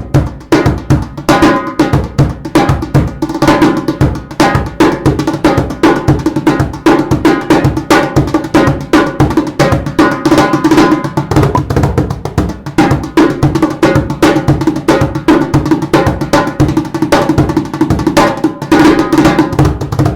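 Clapbox Cajembe, a cajon-djembe hybrid drum, played by hand in a fast, continuous groove, with deep bass thumps mixed with sharper slap strokes.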